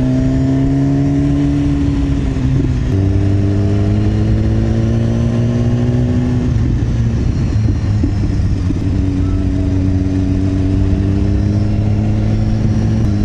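Motorcycle engine running while ridden along the road, its note rising slowly, dropping about three seconds in, climbing again, then dropping around seven seconds in and holding steady.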